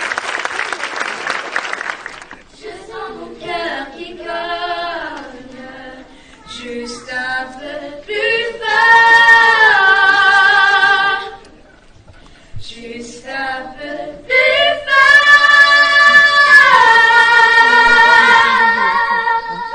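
Applause for the first two seconds, then a group of children singing a cappella, with long held notes and a short break about twelve seconds in.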